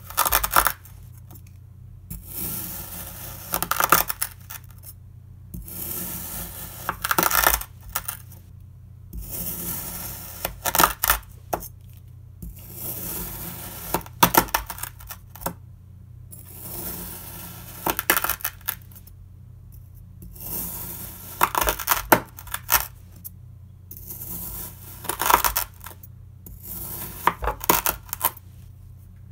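Knife slicing through a packed block of kinetic sand, about a dozen cuts each giving a crisp, grainy crunch that lasts a second or two, with short pauses between them.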